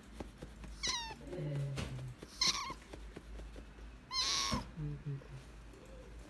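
Young kitten mewing three times, high-pitched calls about a second and a half apart, the last one longer; its voice is hoarse from crying.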